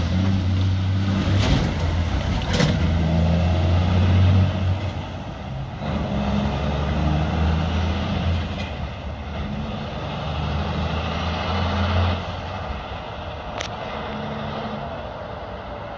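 Kenworth K200 truck's diesel engine pulling away. The engine note drops out briefly about five and twelve seconds in, and the sound fades as the truck drives off.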